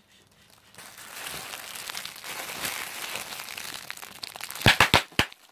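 Plastic bubble wrap crinkled and squeezed right at the microphone, then four sharp pops in quick succession near the end as bubbles burst.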